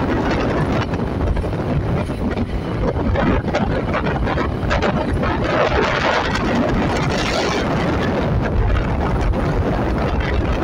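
Steady wind buffeting the microphone over the engine and tyre noise of a vehicle driving along a paved road.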